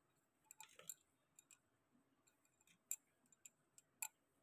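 Faint, scattered clicks and light taps of a metal spoon against a steel plate as sweet chutney is spooned onto papdi chaat, with a couple of sharper ticks about three and four seconds in.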